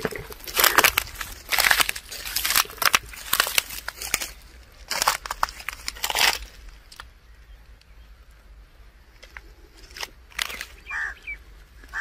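Footsteps crunching through dry harvested crop stubble and clods, an irregular run of sharp crunches that stops about six seconds in.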